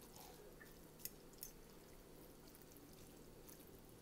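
Near silence with faint wet stirring of sauce-coated instant noodles with a fork in a bowl, and two light clicks of the fork against the bowl about a second in.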